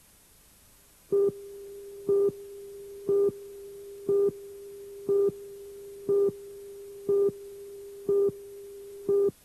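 Electronic beeping: a single mid-pitched tone beeps nine times, once a second, over a quieter steady tone of the same pitch that stops with the last beep.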